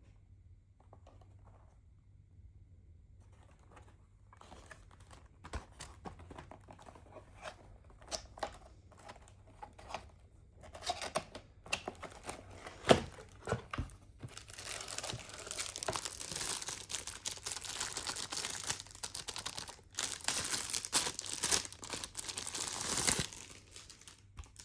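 A keyboard's packaging being unboxed: scattered rustling and crinkling with a sharp knock about halfway through, then a long stretch of continuous crinkling and tearing that stops shortly before the end.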